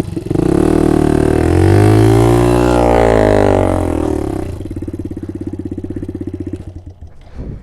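Small 50cc motorbike engine revved hard, its pitch rising to a peak about two seconds in and then falling. It then runs lower with a rapid pulsing beat and drops away near the end.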